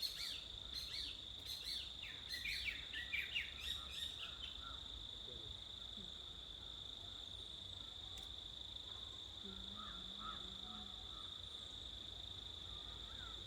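A bird twittering in a rapid flurry of short, sharp chirps for the first four seconds or so. This sits over a steady, high-pitched insect drone that runs throughout.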